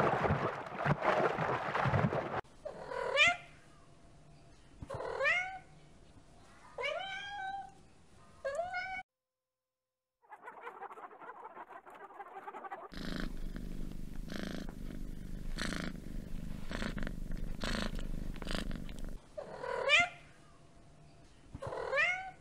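Domestic cat meowing over and over: about a second per meow, each rising then falling in pitch, spaced a second or two apart. The meows break off midway for several seconds of chickens clucking and scratching.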